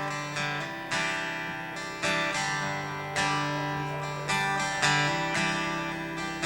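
Guitar strumming chords that ring out, struck again about once a second over sustained low notes: the instrumental intro to a live band's song, just before the singing starts.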